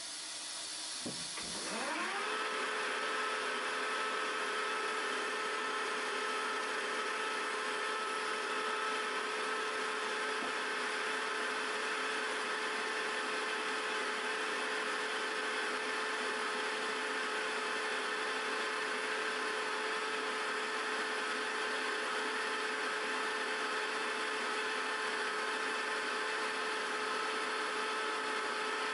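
Milling machine spindle starting up with an end mill in it: about a second in its whine rises in pitch, then it settles and runs at a steady speed.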